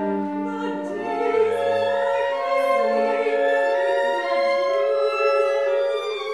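A woman singing a classical art song in an operatic style with instrumental accompaniment, holding long notes with vibrato; one long held note in the middle.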